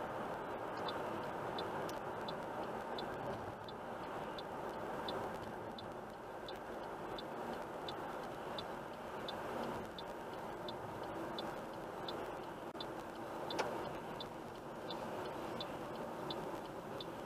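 A car's turn-signal indicator ticks steadily, two to three clicks a second, over steady road and engine noise inside the cabin as the car slows to turn off. A single sharper click comes about two-thirds of the way through.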